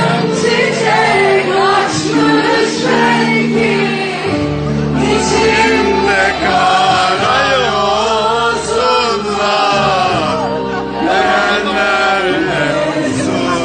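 Music with singing: held, wavering sung notes over a steady instrumental accompaniment.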